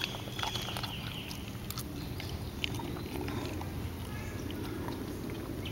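Great Dane puppy gnawing and tearing at a whole raw rabbit, with scattered small wet clicks and crunches of chewing throughout, and a faint high chirp near the start.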